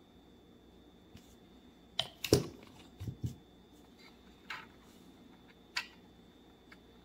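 Small hard clicks and knocks: the plastic brush-cap of a glass bottle of Tamiya plastic cement being put back on and the bottle set down, the loudest about two seconds in, with two more knocks just after. Lighter ticks follow as plastic model parts are handled.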